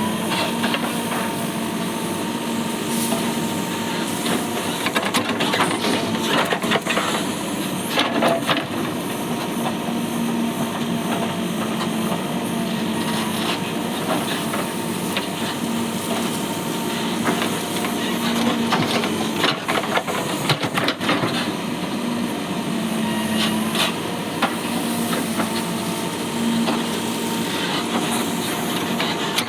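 Mahindra backhoe loader's diesel engine running steadily while it works, with repeated knocks and clatter from the bucket and falling soil.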